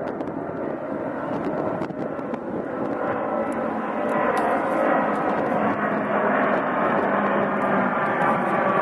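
Four-engine Airbus A380 jet airliner, a steady jet-engine rush with a faint whine that grows louder from about three seconds in as the aircraft nears.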